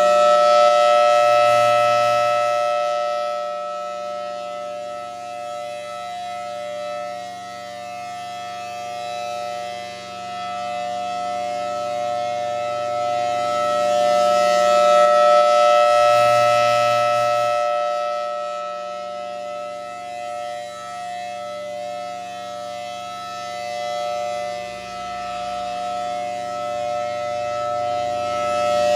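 Federal Signal Thunderbolt 1000BTSB outdoor warning siren sounding a full-alert steady tone, its pitch holding flat. It is very loud, and the volume swells and fades about every fifteen seconds as the rotating horn sweeps past, loudest near the start, about halfway and again near the end.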